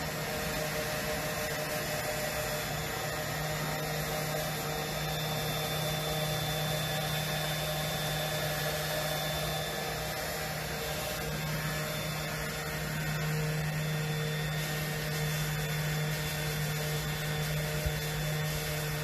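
Electric power sander running steadily while sanding a wooden bench, a constant motor hum with a few steady higher tones over a grainy hiss.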